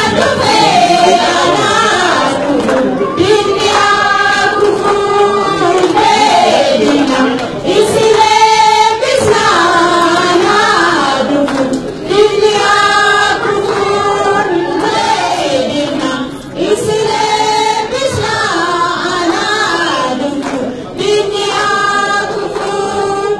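A group of voices singing a song together in repeated sung phrases, loud and continuous.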